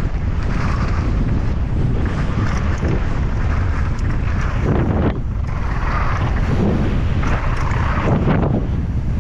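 Loud wind rumble buffeting an action camera's microphone, surging every few seconds.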